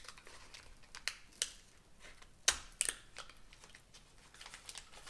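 Waxed paper wrapper of a 1985 Garbage Pail Kids wax pack being peeled open by hand: faint, irregular crinkles and crackles, the sharpest about two and a half seconds in.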